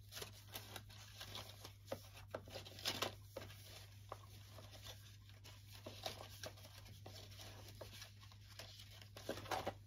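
Sheets of paper rustling and being handled in short, irregular bursts, with a steady low hum underneath.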